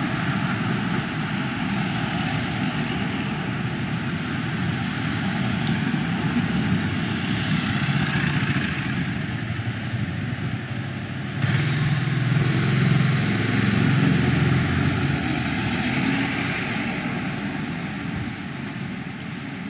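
Street traffic: a steady rumble of vehicles on the road alongside, swelling louder suddenly about halfway through as a vehicle passes and easing off near the end.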